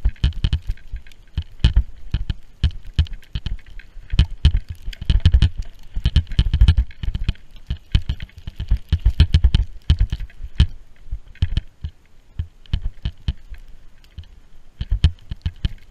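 Wind buffeting and a dense run of irregular knocks on an action camera's microphone while riding fast through deep powder snow. There is a heavy low rumble and no steady tone.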